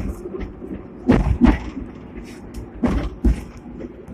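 Hong Kong electric double-deck tram running, heard inside its lower deck: a low rumble with two pairs of heavy knocks and rattles from the car as it rolls along the track.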